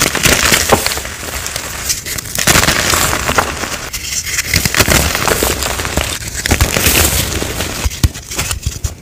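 Glitter-coated blocks of reformed gym chalk crushed and broken apart in the hands: dense crunching and crackling, in several bouts with short lulls between.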